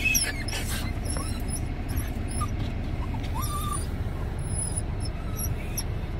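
Miniature schnauzers whining in short, high-pitched whimpers over the steady low rumble of a car driving.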